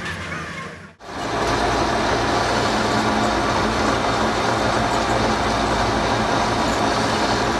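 Metal lathe running steadily, its spinning chuck turning a steel truck input shaft against the cutting tool. The sound comes in about a second in, after a brief drop, and holds even from then on.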